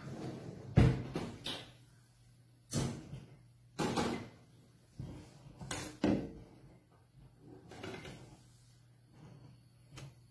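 Separate knocks and clunks from handling a pressure cooker on a gas stove, as the cooker is set on the burner and the stove is lit. The loudest knock comes about a second in, followed by fainter ones every second or two.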